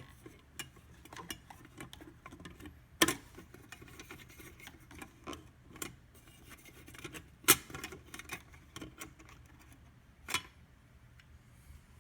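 Handling noises from a vintage NCR adding machine as it is opened up to show the inside: scattered small clicks and rattles, with three louder sharp knocks about three seconds in, halfway through and near the end.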